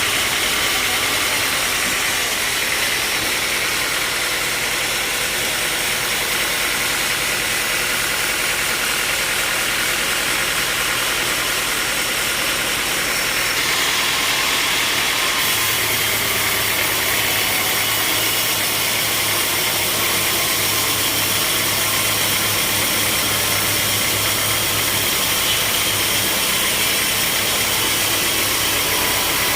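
Sawmill machinery running steadily: a continuous mechanical drone and hiss, with a low hum coming in about halfway through.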